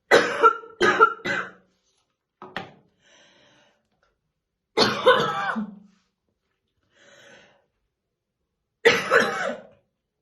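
A woman coughing in heavy, deep fits: three coughs in quick succession at the start, a single short cough about two and a half seconds in, a longer fit around five seconds in and another near the end. The uploader presents it as a smoker's morning cough.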